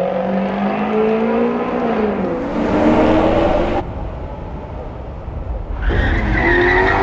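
Maserati Quattroporte GTS's 4.7-litre V8 exhaust under acceleration, its pitch climbing, dipping briefly about two seconds in, then climbing again. The sound cuts off abruptly halfway through to a low rumble for about two seconds, then the engine note rises again near the end.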